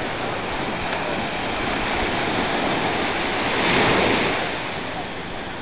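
Sea waves washing onto a beach: a steady rush of surf that swells to one louder break about four seconds in, then ebbs.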